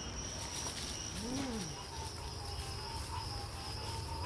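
A steady, high-pitched trill of night insects in the evening air. About a second in, one brief low call rises and then falls in pitch.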